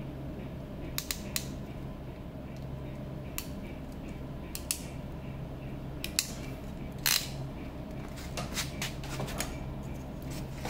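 A Pro'sKit crimping tool clicking and clacking as insulated terminals are crimped onto wires: scattered sharp clicks, a louder snap about seven seconds in, then a quick run of clicks. A steady low hum runs underneath.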